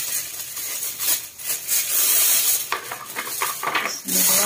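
Thin plastic bag crinkling and rustling in irregular bursts as dumplings are scooped into it by hand.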